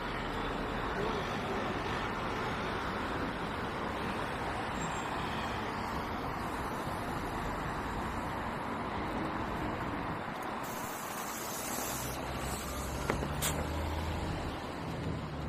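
Road traffic: a steady rush of passing vehicles. About ten seconds in, a short hiss is followed by the low hum of a heavy engine. A sharp click comes near the end.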